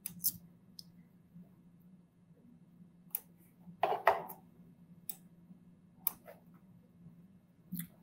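Computer mouse clicking a few times at irregular moments, with one louder click about halfway through, over a faint steady low hum.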